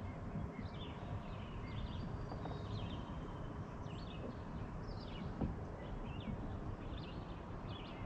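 Several birds singing from the shoreline, a steady stream of short, quick chirps and trills, over a low steady rumble. A single sharp tick about five and a half seconds in.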